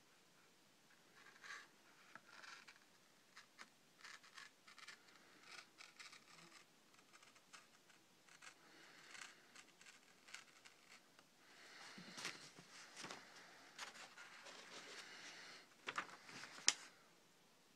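A freshly sharpened knife edge shaving fine shreds off the edge of a sheet of paper: faint, short scraping slices, one after another. In the last few seconds the sound turns into louder paper rustling with a few sharp crinkles.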